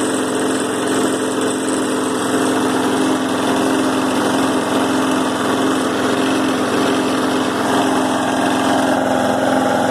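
Four-stroke push mower engine running steadily with its crankcase drained of oil and dirt in its carburettor and oil fill; the dry-run engine has developed a rod knock.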